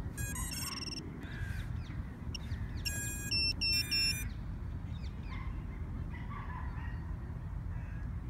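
Two short runs of high electronic beeps from the FPV drone gear, one about half a second in and a longer run of stepped beeps from about three to four seconds in, over a steady low rumble of wind on the microphone.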